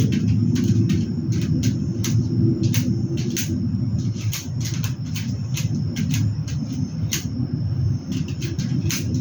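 Steady low rumble of a passing train, with irregular sharp clicks and scratches scattered throughout.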